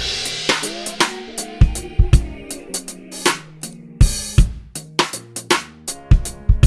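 Drum kit playing a steady rock-style beat of kick, snare and hi-hat. A cymbal crash starts it, and another crash comes about four seconds in.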